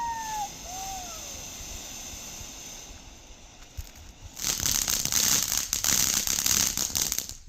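A few faint falling whistles, then about halfway in a firework bursts into rapid, dense crackling for about three seconds before cutting off.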